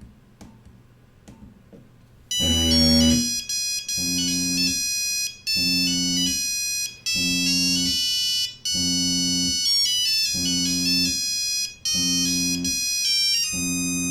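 Mobile phone ringtone playing through the phone's speaker, starting about two seconds in. It is an electronic melody of bright notes over a low pulsing bass, in phrases that repeat about every one and a half seconds.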